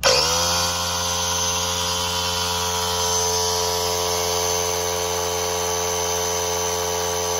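McGraw 3-gallon oil-free pancake air compressor switched on, its motor and oil-free pump starting abruptly and then running with a steady, loud mechanical drone as the tank fills. At first the owner took this sound to mean the unit was bad.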